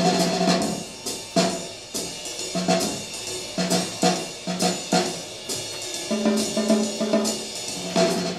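Recorded music led by a drum kit, with sharp snare and bass drum hits about twice a second over held low notes, played back through hi-fi loudspeakers.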